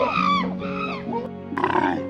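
Monkey calls: two short cries that rise and fall in pitch in the first second, over background music. A harsher, noisier animal call starts about a second and a half in.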